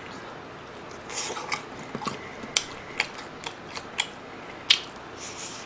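Close-miked chewing of crispy fried breaded pork cutlet (donkatsu): irregular crunches and sharp clicks, the loudest a little before the end.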